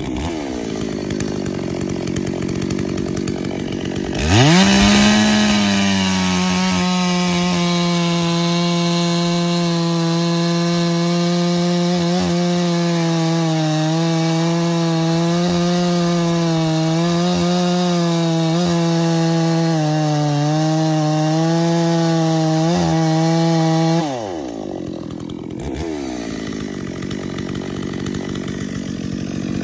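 Stihl 034 Super single-cylinder two-stroke chainsaw, freshly fitted with new piston rings that are being run in: it idles, is revved sharply to full throttle about four seconds in and held there for about twenty seconds while cutting into a log, its pitch wavering slightly under load, then drops back to idle.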